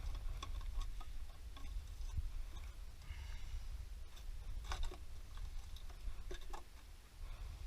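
Scattered light clicks and taps of tools and parts being handled during work on a car's rear differential, at irregular spacing over a low steady rumble.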